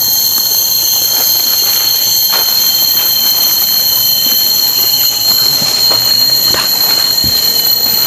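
Loud, steady, high-pitched drone of cicadas in tropical forest, several shrill pitches held together without a break. A few faint crackles, footsteps on leaf litter, come through underneath.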